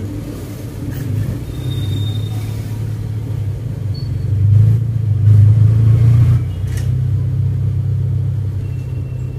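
Car's engine and road rumble heard from inside the cabin while driving, a steady low drone that grows louder for a couple of seconds about halfway through.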